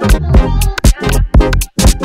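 Background electronic dance music with a steady, heavy beat.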